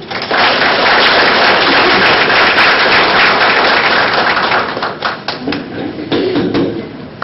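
Audience applauding, thinning out to scattered claps and dying away over the last couple of seconds.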